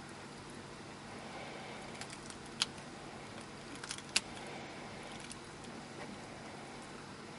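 A few sharp clicks and small cracks, two of them louder (about two and a half and four seconds in), from a Mexican beaded lizard biting and pushing at quail eggshells in a terracotta dish, over a steady low hiss.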